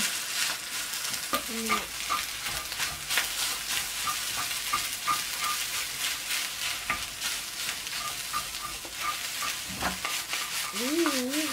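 Rice and egg frying in a small cast-iron skillet over a gas flame, stirred with a wooden spatula: a steady sizzling hiss with frequent scrapes and taps of the spatula against the pan.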